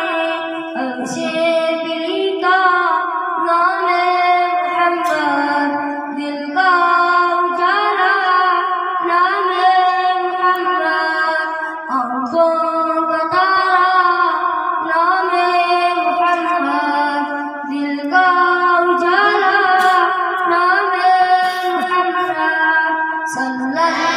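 A boy singing solo into a microphone, amplified through a loudspeaker, with no instruments. He holds long notes that waver and bend between phrases.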